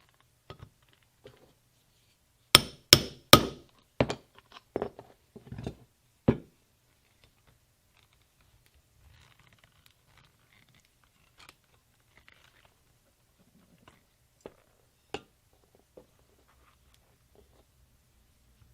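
Small ball peen hammer striking while setting #9 copper rivets in saddle leather: a quick run of about ten sharp, ringing metal taps, the first three the hardest, then a few scattered lighter taps.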